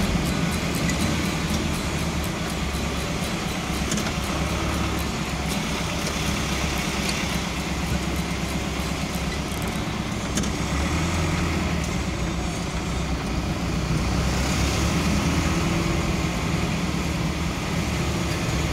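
Steady engine and road noise of a vehicle driving along a street, heard from on board.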